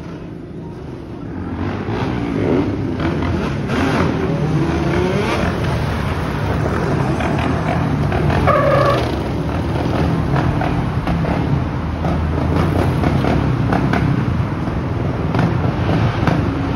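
ATV (quad bike) engines running and revving, louder from about two seconds in, over passing car traffic. A brief higher-pitched tone sounds about eight seconds in.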